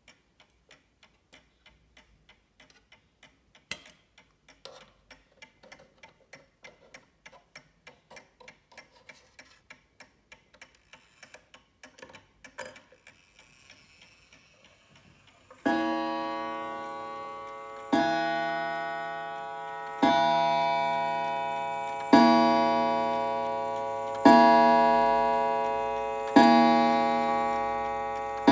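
Vintage Art Deco pendulum mantel clock ticking steadily. About halfway through it begins striking the hour on its coiled gong, one ringing stroke roughly every two seconds, each dying away slowly; six strokes sound, with a seventh just starting at the end.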